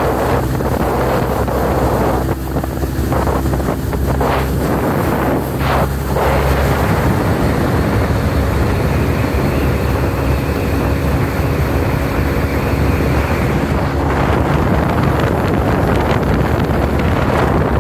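Small speedboat under way: its engine running steadily, with rushing water along the hull and wind buffeting the microphone. The sound grows a little fuller and steadier from about six seconds in.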